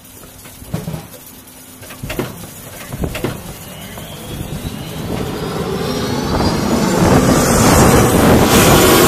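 A few knocks and thumps of the crew hurrying up the boarding ladder, then a KC-135 Stratotanker's CFM56 turbofan engines starting: a rising whine of the engines spooling up, with the engine noise growing steadily louder until it is the loudest sound by the end.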